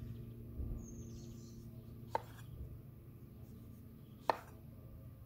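Chef's knife cutting through an orange on a wooden cutting board, the blade knocking sharply on the board twice, about two seconds apart.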